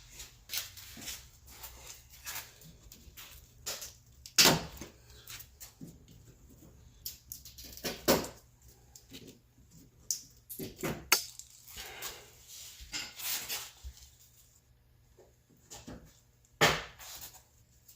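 Hand tools working on a car door panel: scattered clicks, clinks and scrapes of metal and plastic, with a few sharper knocks.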